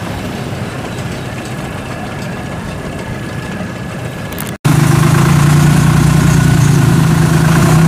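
A steady engine hum, then a sudden cut about four and a half seconds in to a homemade tracked rice combine harvester's engine idling loud and close, with a steady low drone.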